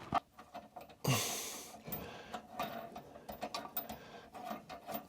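Hand ratchet clicking in short irregular runs while a nut is run onto a tub mounting bolt, after a short rushing noise about a second in.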